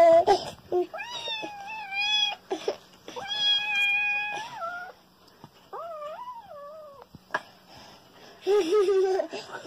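A small kitten meowing several times, each meow a long, high-pitched call of about a second, wavering at its end. Near the end there is a brief lower-pitched whimper from a baby.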